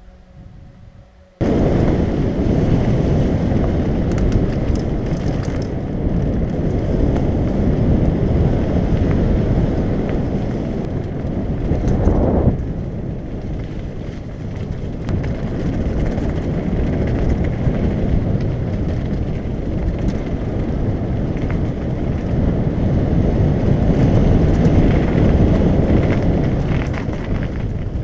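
Heavy wind buffeting a bike-mounted camera's microphone during a fast mountain-bike descent, with the rumble and rattle of tyres over a rough gravel track. It starts abruptly about a second in and stays loud throughout.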